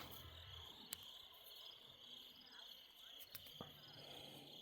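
Faint steady chirping of crickets at night, with a couple of faint clicks about a second in and past the three-second mark.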